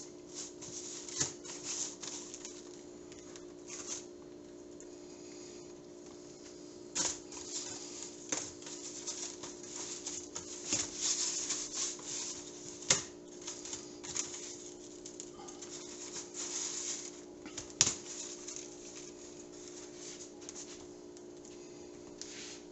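Coarse kosher salt crunching and rustling as salmon fillets are pressed into it in a plastic tray, with scattered sharp clicks and taps, the sharpest about 13 and 18 seconds in. A steady low hum runs underneath.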